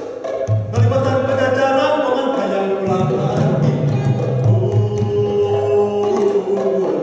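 Gamelan ensemble playing: struck bronze metallophones and kettle gongs ring in sustained, overlapping tones over a deep, steady low hum.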